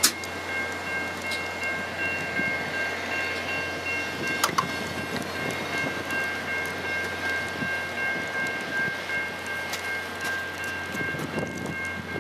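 Via Rail passenger cars rolling past at track level: a steady rumble of wheels on rail with a few sharp clicks. A steady high-pitched whine runs underneath.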